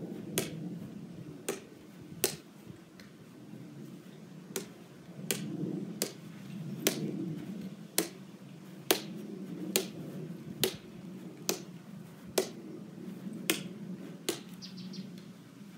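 A plastic wiffle ball bounced up repeatedly off a paddle, with a sharp tap each time it is struck, about once a second.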